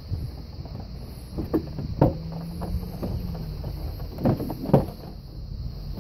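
Plastic door trim panel on a Honda CR-V's front door being pressed and knocked into place, its clips seating with a few sharp knocks. The loudest knock comes about two seconds in and a pair follows near four and a half seconds.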